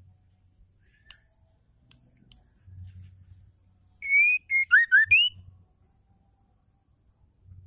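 White-rumped shama singing one short whistled phrase about four seconds in: a held clear note, then a quick run of shorter notes that dip lower, ending on a rising whistle. A few faint clicks come before it.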